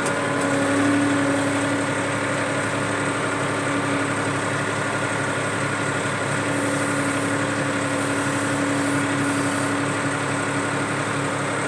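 Tractor engine running steadily with a constant hum while it drags a felled tree.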